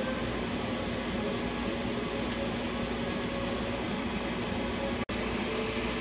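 A steady mechanical hum with a soft hiss, cutting out for an instant about five seconds in.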